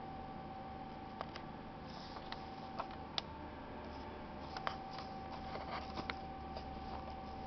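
Faint clicks and rustles of hands handling thin wires and the leads of a small DC motor, over a steady background hum.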